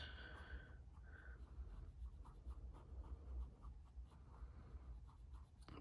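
Faint scratching of a wooden toothpick stirring two-part rhinestone glue on a mixing pad, soft short strokes about two or three times a second.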